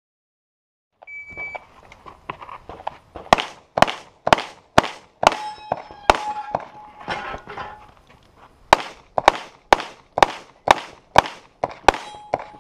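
A shot timer's start beep, then a dozen or so pistol shots fired in two strings at about two a second, with a pause of a couple of seconds between them as the shooter changes portals. Steel poppers ring for a second or two after being hit.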